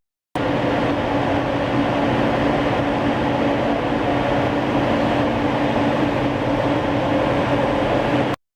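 Six-colour stack-type flexo printing press running: a steady mechanical drone with a few held hum tones. It starts abruptly just after the beginning and cuts off abruptly near the end.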